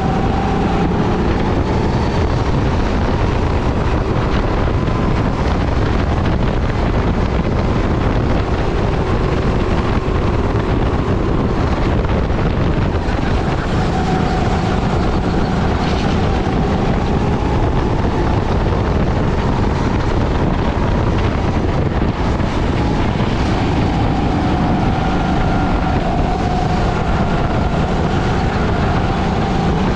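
Onboard sound of a Sodikart rental go-kart at racing speed: the engine runs continuously, its pitch dipping and rising again through the corners, under heavy wind noise on the camera microphone.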